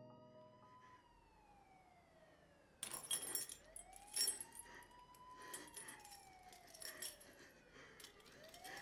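Faint siren wailing slowly up and down, rising and falling about every five seconds. About three seconds in, sharp irregular clicking and rattling joins it.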